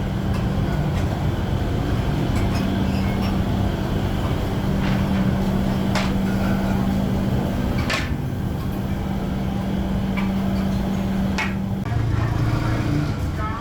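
Workshop machinery running with a steady hum. A few sharp metallic knocks stand out, and the hum drops to a lower pitch near the end.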